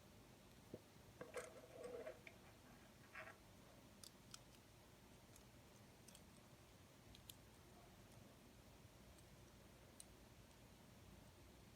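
Near silence with a few faint clicks of plastic LEGO Technic pieces being handled and pressed together: a short cluster of clicks between one and two seconds in, then scattered single ticks.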